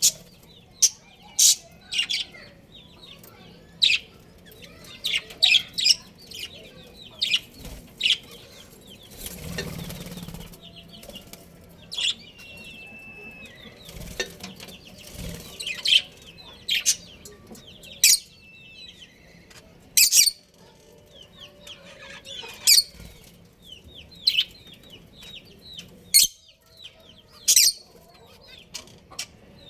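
Budgerigars chirping and chattering: sharp high calls every second or two over a soft, continuous warble. A short rush of wing flapping about ten seconds in.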